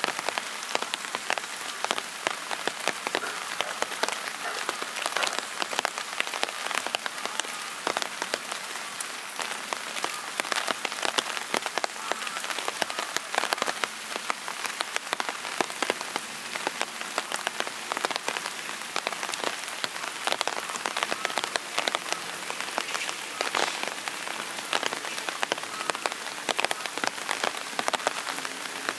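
Steady rain, with many separate drops ticking sharply on a hard surface close by.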